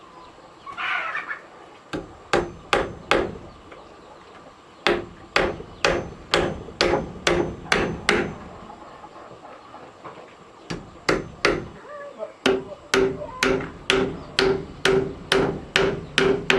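Hammer blows, likely driving nails, in quick runs of about three a second with short pauses between the runs. The later blows ring with a clear pitch.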